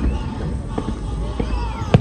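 Aerial fireworks shells bursting: four sharp bangs in quick succession, the last one the loudest, over wavering whistle-like tones.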